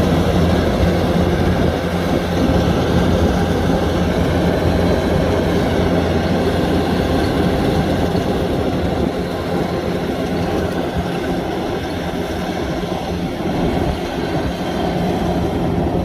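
Kubota DC-105X rice combine harvester running steadily while harvesting: a steady diesel engine drone under the dense noise of its cutting and threshing machinery. It grows slightly fainter in the second half.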